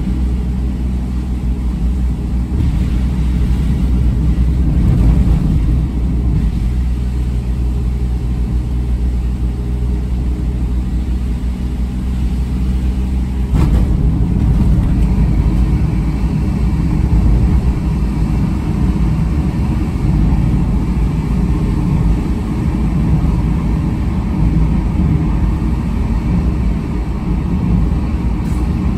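A car driving on a wet road, heard from inside the cabin: steady engine hum and tyre noise. About fourteen seconds in, with a single knock, the car enters a tunnel and the noise becomes louder and rougher.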